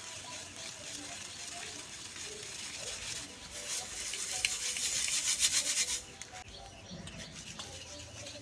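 Dry, dusty lumps crumbling apart: a dense gritty crackle that builds from about three seconds in and stops abruptly near six seconds, with softer crumbling around it. Birds chirp faintly in the background.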